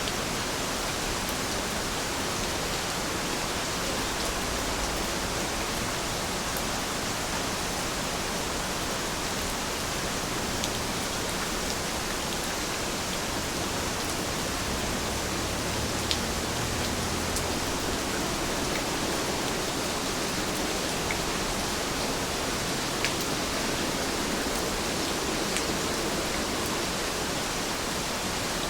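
Steady rainfall, an even hiss, with a few sharper drip ticks standing out here and there.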